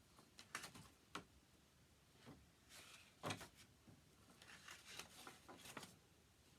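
Faint rustling and light taps of paper scraps being handled and shuffled through, with a slightly louder tap about three seconds in.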